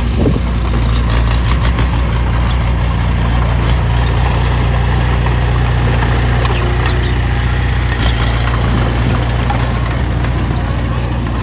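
Heavy earthmoving machine's diesel engine running steadily at a low, even pitch, with scattered clicks and knocks on top.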